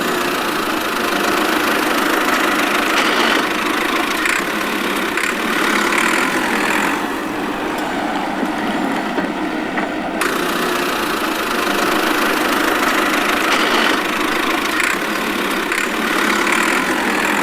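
A DIY mini tractor's small motor running steadily.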